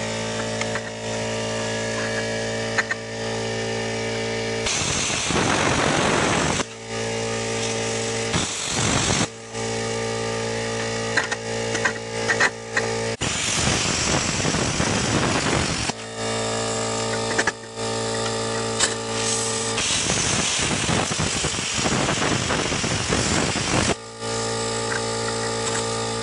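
Plasma cutter cutting steel plate: a steady electrical hum from the machine, broken four times by stretches of the arc's rushing hiss as the torch cuts, with short breaks where it stops and restarts.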